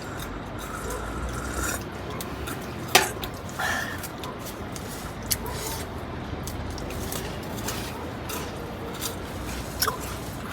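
Steady low background noise with scattered small clicks and taps, the sharpest one about three seconds in, and faint liquid-like sounds.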